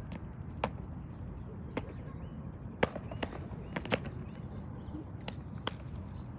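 Sharp claps and slaps from cadets' unarmed drill routine, about nine at irregular spacing with the loudest near the middle, over a steady low rumble.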